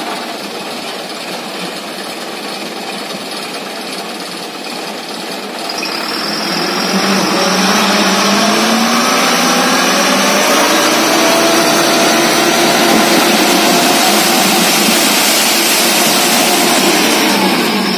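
Dump truck's diesel engine running, then revved up about six seconds in and held high while the hydraulic hoist raises the loaded tipper bed to dump fill soil; the revs drop back near the end.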